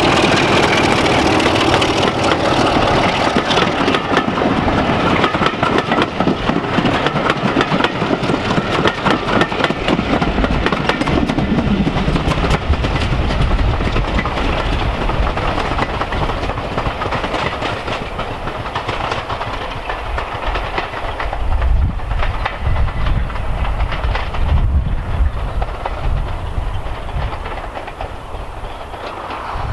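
British Rail Class 33 diesel locomotive's Sulzer eight-cylinder engine running under power as it passes with its coaches, wheels clicking on the track, then fading as the train draws away. Wind buffets the microphone in the later part.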